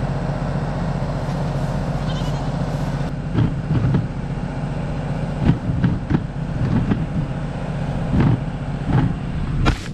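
A tractor engine running steadily, with Nigerian Dwarf goats bleating and several sharp knocks close to the microphone from about three seconds in, the loudest near the end.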